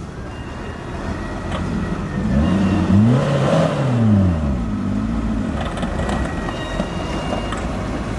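Small Suzuki pickup's engine revving as it strains to pull out of mud under a heavy load of cassava: the revs climb hard about two seconds in, peak, and fall back, then rise and fall again more gently.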